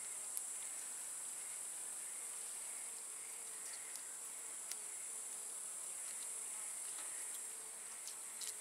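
Steady, high-pitched chirring of insects in summer grass. A few faint clicks come from a fish being worked onto a wire hook.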